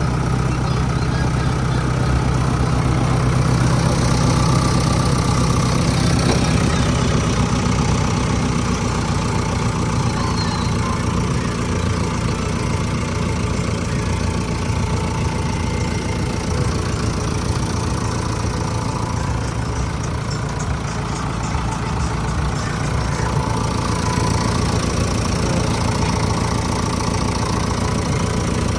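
Heavy vehicle's diesel engine idling steadily.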